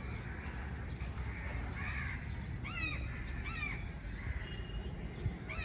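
Crows cawing: several short harsh caws about a second apart, over a steady low background rumble.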